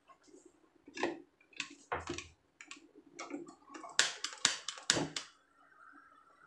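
Clicks and knocks of a long-neck lighter and gas stove knob as a burner is lit under a steamer pot, with a quick run of clicks about four seconds in; the gas flame then catches with a steady hiss.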